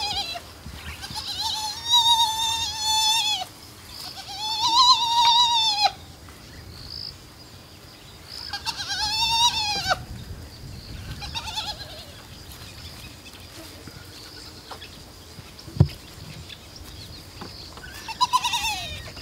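Spotted hyena cubs whining: about five high, wavering, drawn-out calls of a second or two each, several dropping in pitch as they end, the begging calls of cubs asking to be fed. A single sharp knock comes about three-quarters of the way through.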